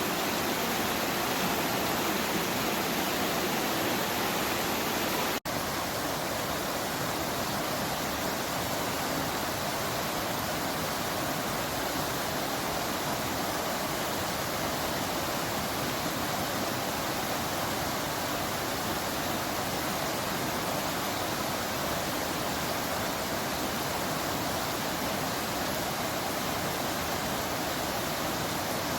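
Rain falling steadily, an even hiss with no separate drops standing out, cut off for a split second about five seconds in.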